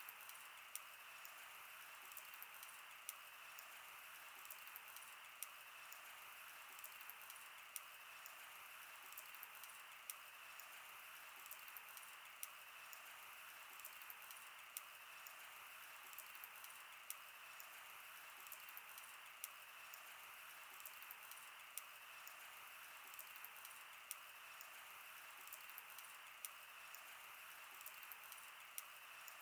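Wood fire crackling, with sharp pops every second or two and many smaller ticks over a soft steady hiss.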